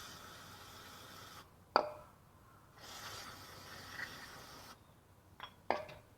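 Steady hissing in two spells of about two seconds each, with a sharp metallic clink between them and two more clinks close together near the end.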